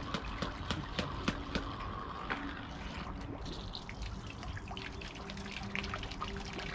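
Small pond fountain pump sending up a jet of water that splashes and trickles back onto the pond surface, with a steady patter of droplets.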